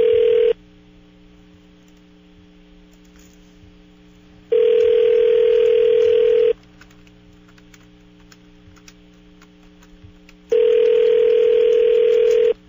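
Telephone ringback tone heard over the line as an outgoing call rings unanswered. It is a steady two-second tone in the North American cadence, repeating every six seconds: the end of one ring in the first half-second, then rings about 4.5 and 10.5 seconds in, with faint line hum between them.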